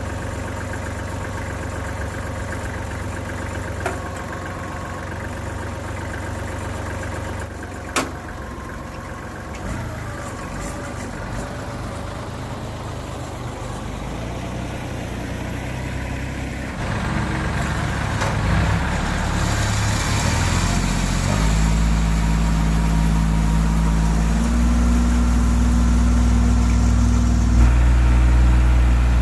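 Kubota compact tractor's diesel engine idling steadily, with a couple of sharp clicks in the first third. From about halfway it gets louder and the engine speed steps up several times, running hardest near the end.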